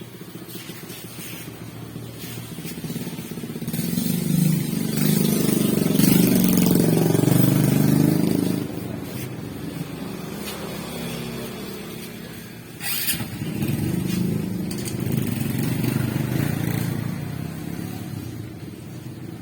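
Small motorcycle engine running, rising in loudness twice, about four seconds in and again about thirteen seconds in, each time dying back down.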